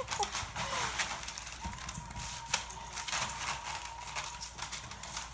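Puppies scampering and playing on a tile floor: a steady patter of small clicks and ticks from claws on the tiles and scattered newspaper, with a faint, thin, steady whine through the middle.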